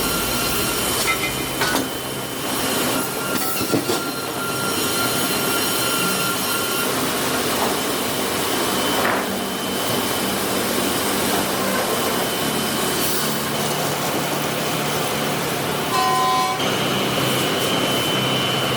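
Heavy wood-processing machinery running steadily: a dense, even noise with faint high whines over it, and a brief higher tone about sixteen seconds in.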